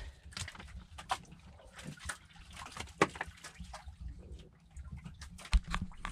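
Scattered light clicks and knocks as fishing line, hook and bait are handled on a boat deck, over a low steady rumble.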